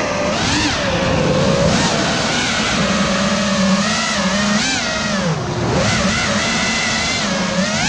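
FPV quadcopter's electric motors and propellers whining, the pitch repeatedly rising and falling as the throttle changes.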